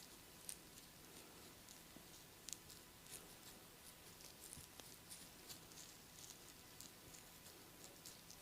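Faint, irregular scratching and soft crackling of hands rubbing skin and hair during a massage, several small ticks a second.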